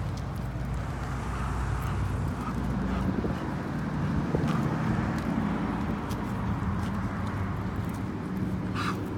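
Steady hum of a motor vehicle engine, with even low tones that swell a little around the middle.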